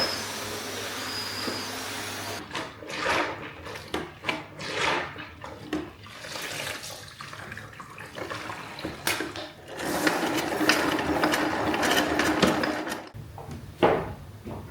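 Water running and splashing at a sink, with irregular handling and washing noises. There is a steadier stretch of running water about ten seconds in, which cuts off abruptly.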